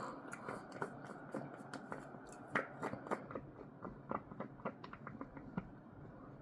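Close-miked chewing of a warm chocolate caramel cookie with ice cream: a quick string of wet clicks and smacks that stops about a second before the end.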